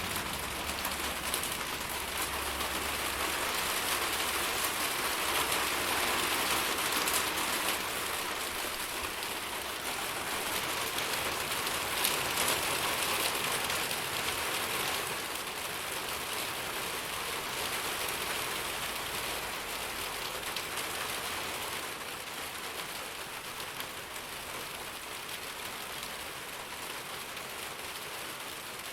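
Steady rain falling and pattering on surfaces, a dense even hiss that eases slightly in level toward the end.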